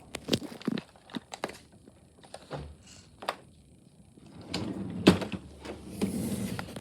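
Objects being handled: a string of light clicks and knocks, then a denser stretch of rustling and knocking over the last two seconds or so, with one sharp knock about five seconds in.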